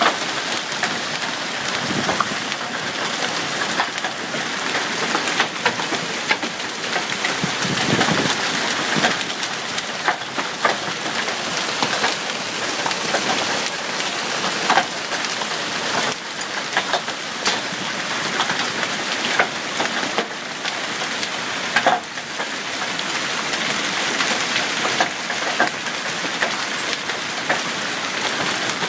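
Hailstorm: a dense, steady hiss of falling hail and rain, studded with many sharp ticks of hailstones striking the ground.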